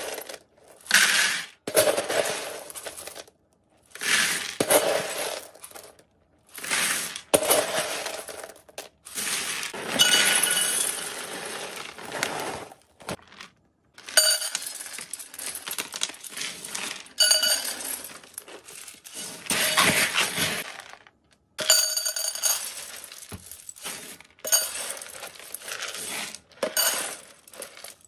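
Hard dry rodent-food pellets poured from a stainless steel scoop into a plastic basin, clattering and rattling, with the scoop scraping and clinking through the kibble. It comes as a series of pours a second or two long with short breaks between them.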